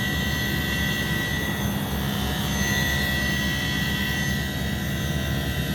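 Hisense inverter air conditioner outdoor unit running: the inverter compressor and condenser fan make a steady hum with a thin, high whine over a rush of fan air. The compressor is running at a target frequency of about 67 Hz.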